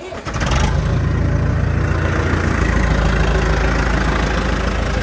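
A large engine starting and running at a steady idle, heavy and low. It is the engine of the machine started up to hoist the gearbox into the tank.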